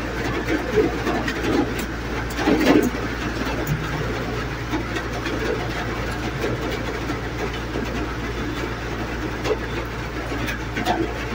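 Steady low mechanical hum of a motor or engine running in the background, with a few light clicks and taps from hand work on the engine's valve gear.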